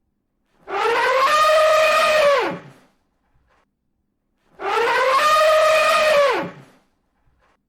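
Elephant trumpeting: two identical calls about four seconds apart, each about two seconds long, rising in pitch, held, then dropping sharply at the end, with silence between them.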